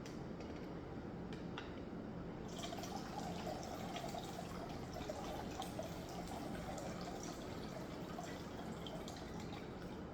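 Water pouring and dripping in a container of Chinese herbs being rinsed, a steady trickle that grows fuller about two and a half seconds in.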